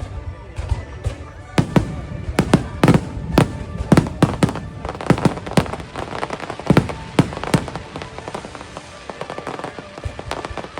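Fireworks bursting in quick succession with sharp, loud bangs over the show's music, followed near the end by a run of fainter, rapid crackling.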